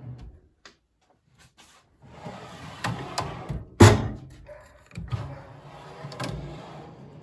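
Steel tool chest drawers on freshly lubricated slides being pulled open and pushed shut: a rushing slide sound with clicks, and a loud metal thunk about four seconds in as a drawer closes, with lighter knocks after it.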